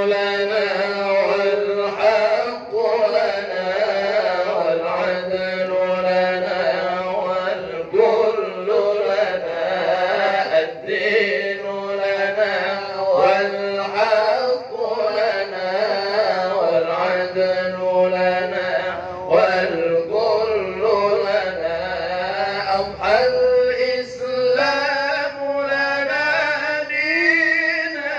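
A man reciting the Qur'an in melodic tilawah style into a microphone: long, ornamented sung phrases held on one breath, with only a few short breaks.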